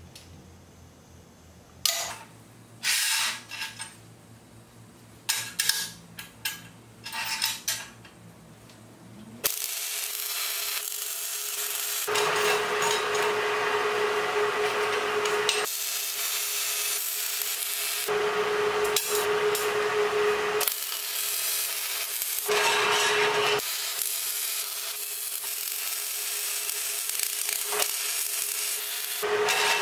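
A few light metal clinks and knocks as steel parts are handled, then about ten seconds in a MIG welder starts: a steady crackling hiss in several runs, broken by short pauses.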